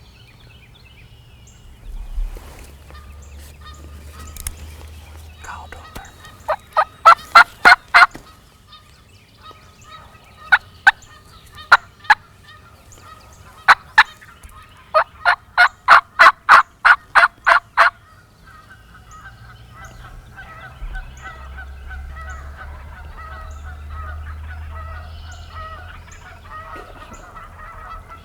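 Turkey yelps in loud, sharp runs of several notes, the longest a fast string of about a dozen. Fainter turkey calling carries on in the background later.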